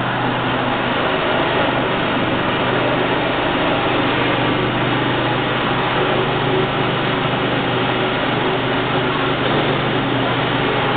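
A 300-ton welding rotator running on its electric drive motors, a steady low hum over dense mechanical noise.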